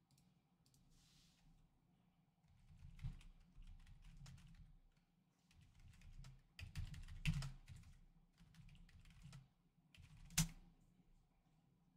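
Faint clusters of small clicks and taps with light rustling, and one sharper click about ten seconds in.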